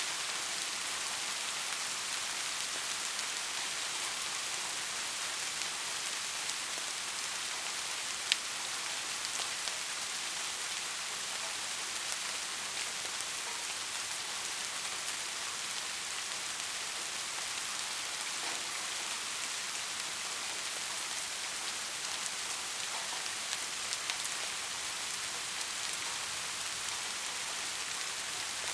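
Soft rain falling steadily: an even hiss with scattered drop ticks and one sharper drip about eight seconds in.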